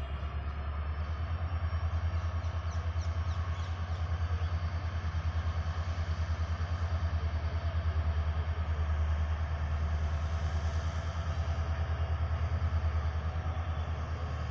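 WDP4B diesel locomotive's EMD two-stroke V16 engine running with a deep, fast, even pulsing rumble. It builds over the first couple of seconds, then holds steady.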